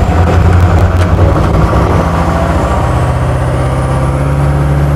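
Duramax V8 turbo-diesel in a converted Humvee accelerating hard, heard from inside the cab: a loud low engine drone whose pitch climbs steadily from about halfway through, with a faint high whine rising alongside.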